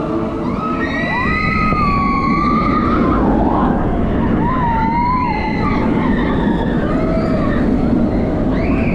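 Roller coaster in motion at speed: steady wind rush and track rumble, with riders screaming over it. One long high scream starts about a second in, and shorter ones follow.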